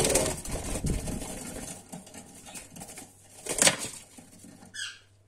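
Young Fischer's lovebirds fluttering their wings, loudest at the start as one flies onto the perch, with a second short flutter about three and a half seconds in. A brief chirp near the end.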